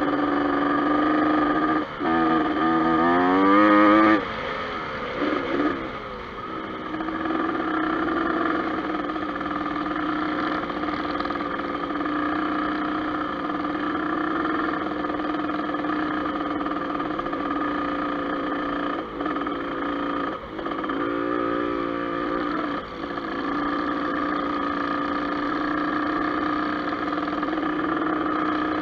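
Dirt bike engine running under way, heard close from the rider's own bike. About two seconds in it revs up with a rising pitch, then drops off sharply at about four seconds and settles to a steady note, with a few brief dips later on.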